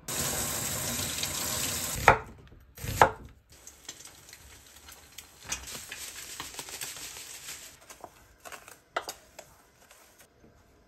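A loud steady rush of noise for about two seconds, then two sharp knocks. After that comes the soft hiss of breadcrumbs poured from a bag into a stainless steel tray of flour, and chopsticks stirring the dry frying coating with a few clicks against the metal tray.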